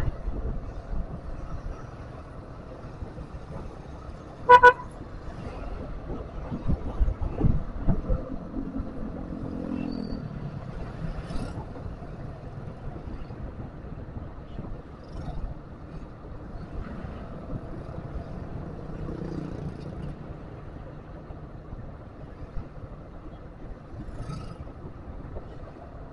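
Street traffic from a moving vehicle: steady engine, tyre and wind noise, with motorbikes and cars passing close. One short vehicle horn toot sounds about four and a half seconds in.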